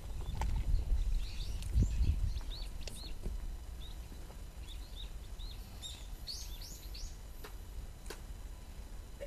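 Small birds chirping repeatedly in short, rising-and-falling calls. A low rumble on the microphone is loudest in the first two seconds.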